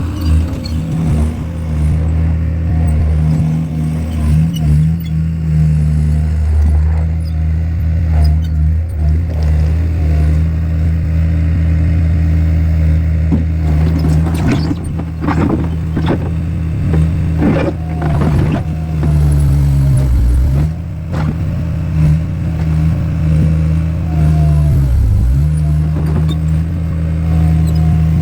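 Skid steer loader's engine running steadily, with a spell of clattering knocks from concrete blocks being scooped about halfway through. Twice in the latter part the engine's pitch dips briefly as it lugs under load.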